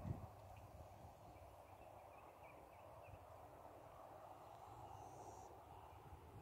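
Near silence: a faint, steady outdoor background hiss with a few faint, short high-pitched chirps.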